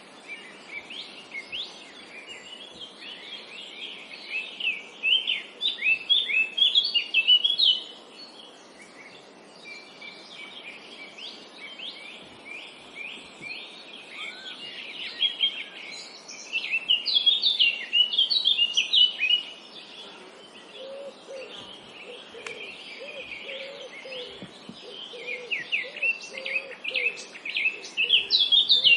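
Songbirds singing in bouts of rapid, high chirping trills that come and go every few seconds, over a steady background hiss. A lower call repeating quickly joins for several seconds past the middle.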